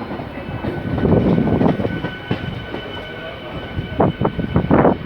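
ICF-built electric multiple unit (EMU) local train running, heard inside the coach: a steady rumble of wheels on track with faint steady tones, louder about a second in, and a cluster of sharp knocks near the end.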